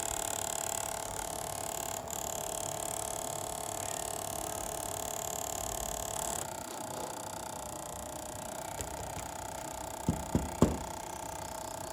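Homemade mini fan's small DC motor running with a steady whine; about six and a half seconds in the high part of the whine drops away, and near the end there are three sharp clicks.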